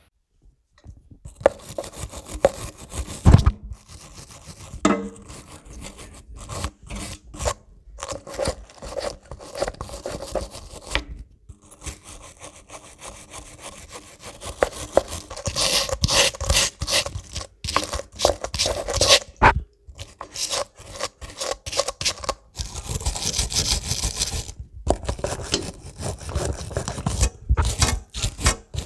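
A brush scrubbing corrosion off a tractor battery's cable terminal in quick, irregular back-and-forth strokes, with a few short pauses.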